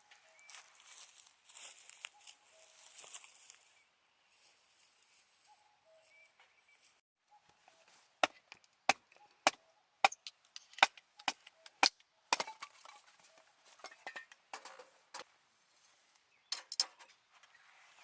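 Wood being chopped at a campsite, likely kindling or firewood split with a hatchet. After a faint hiss, sharp knocks start about eight seconds in, coming about two a second for several seconds, then in scattered groups.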